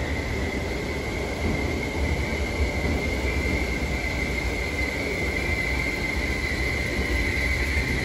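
Merseyrail Class 508 electric multiple unit pulling into an underground station platform: a steady low rumble of the train with a thin high squeal that holds throughout and grows louder near the end.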